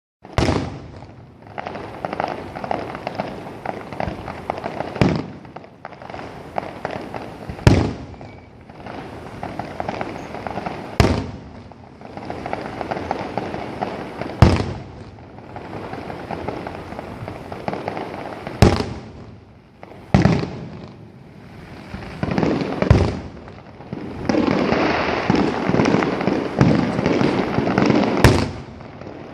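Aerial fireworks finale: sharp booms of shells bursting every few seconds, with continuous crackling between them. The crackling grows denser and louder over the last five seconds or so.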